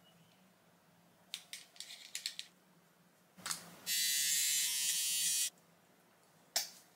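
A few light clicks, then a small battery-powered Flawless facial hair trimmer buzzing steadily for about a second and a half as it is run along the eyebrow.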